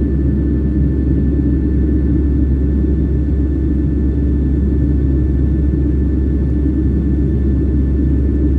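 Jet airliner cabin noise: a steady low rumble of engines and airflow heard from inside the cabin, with a faint steady whine above it.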